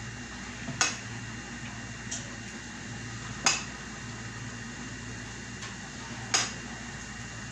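Kitchenware clinking against a bowl: a few sharp, separate clinks spaced one to three seconds apart, one of them fainter, over a steady low hum.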